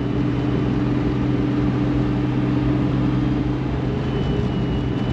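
Toyota Supra's straight-six engine droning steadily at about 2,500 rpm, heard from inside the cabin while driving. The driveline runs smoothly with no clunking, the newly fitted OS-Giken limited-slip differential having taken out the slop.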